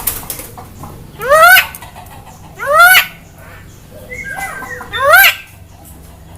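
Javan myna giving three loud, short calls that sweep upward in pitch, about a second and a half apart, with a fainter call just before the third.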